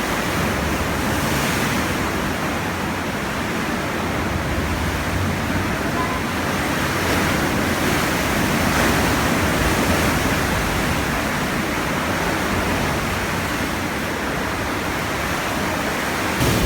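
Heavy surf from a typhoon-swollen sea, a continuous rushing noise of waves breaking against rock that swells and eases slightly.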